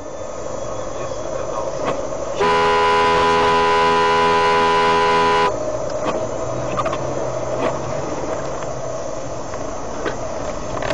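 A car horn sounds in one long, steady blast of about three seconds, starting a couple of seconds in. Behind it runs the steady engine and road noise of a moving car, heard from inside the cabin.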